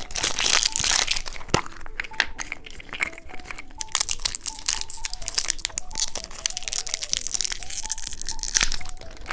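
Plastic wrapping of a surprise-egg candy crinkling and tearing as it is opened by hand, with many sharp clicks and crackles.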